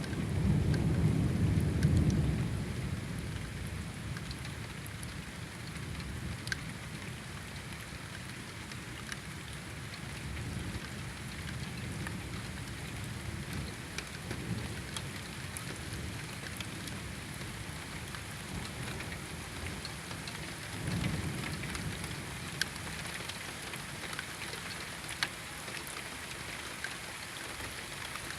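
Steady rain falling, with scattered drop ticks. Thunder rumbles loudly at the start and fades over the first few seconds, and a softer rumble of thunder comes about three-quarters of the way through.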